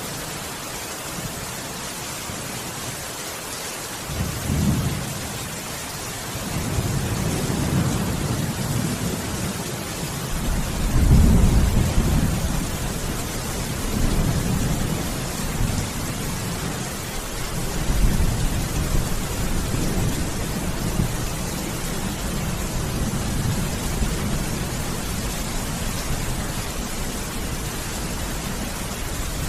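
Steady rain hissing, with thunder rolling in low. The first rumble comes about four seconds in, the loudest peal around eleven seconds, and another near eighteen seconds, then the thunder keeps rumbling under the rain.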